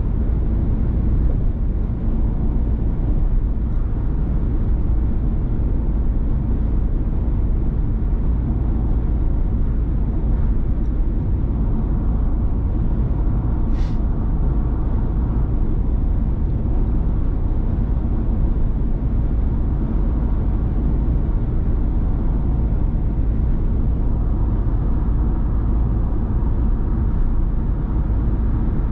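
Steady low rumble of a Ford Transit Custom diesel van on the move, engine and road noise heard from inside the cabin. A single short click sounds about fourteen seconds in.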